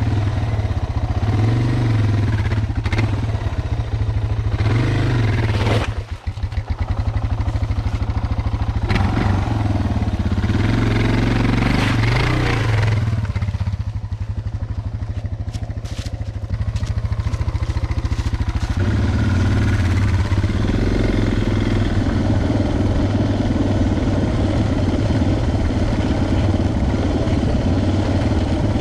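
Suzuki DR650 dual-sport motorcycle's single-cylinder four-stroke engine running as the bike rides along a trail, with some clatter. The engine eases off briefly about six seconds in and again for a few seconds in the middle, then runs steadily.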